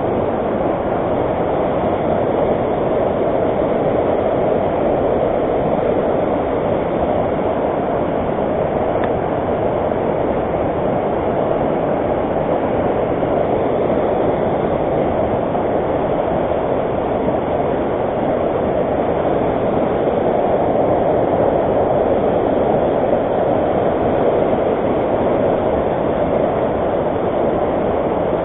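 Fast-flowing river water rushing, a loud steady noise without breaks.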